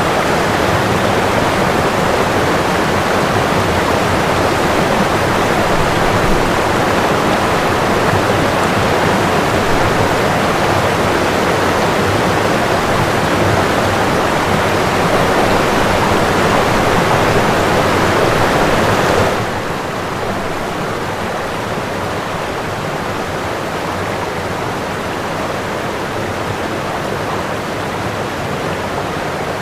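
Steady rush of running water. About two-thirds of the way through it suddenly drops to a quieter, duller rush.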